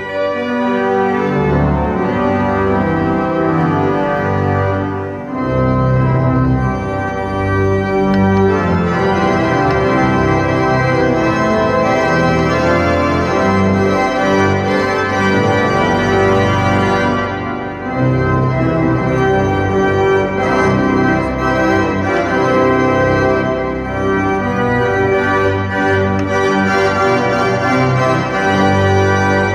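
Church organ played from a three-manual console: loud, sustained chords moving from one to the next, with short breaks between phrases about 5, 17 and 24 seconds in.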